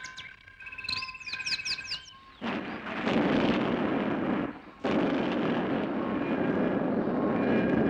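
Soundtrack explosion effect: a loud, rushing blast noise for clay pieces bursting apart. It breaks off briefly in the middle and cuts off suddenly at the end. Before it, in the first two seconds, quick descending electronic chirps and held whistling tones fade out.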